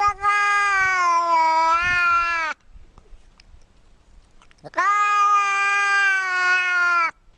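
Grey fold-eared cat giving two long, drawn-out meows. The first is already under way at the start and trails slightly lower in pitch. The second starts about five seconds in.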